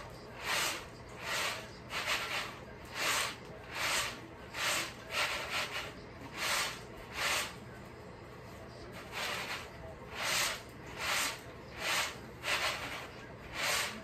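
Peanuts and their broken shells swishing and rattling on a round woven bamboo winnowing tray as it is tossed, one toss about every 0.7 seconds, with a short pause about halfway through.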